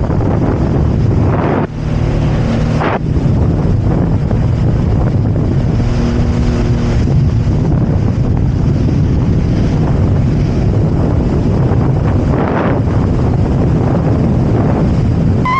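Heavy wind buffeting the microphone over a jet ski engine running at speed, with a brief dip about a second and a half in.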